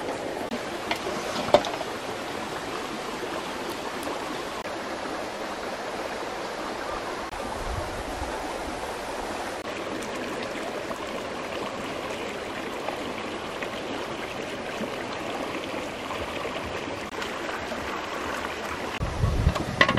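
Rocky stream flowing, a steady rush of water, with a sharp click about a second and a half in and a low bump near the end.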